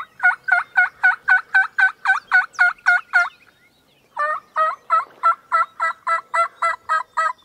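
Turkey yelping: two long series of loud, evenly spaced yelps at about four a second, broken by a short pause about three seconds in.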